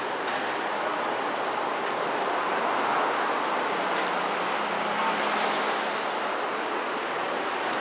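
Steady road traffic noise, with a faint engine hum in the middle few seconds.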